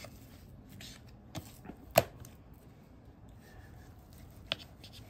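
A knife slicing through a partly frozen boneless pork butt on a cutting board, with a few sharp taps as the blade meets the board, the loudest about two seconds in.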